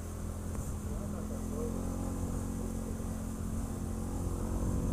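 ATV engine running steadily while riding, a constant low drone with no change in pitch.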